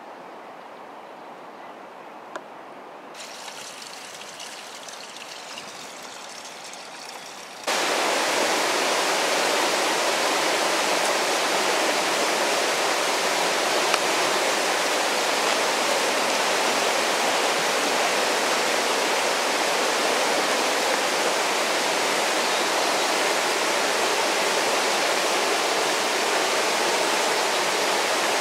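Creek water rushing steadily, quieter at first and then much louder and fuller from about eight seconds in.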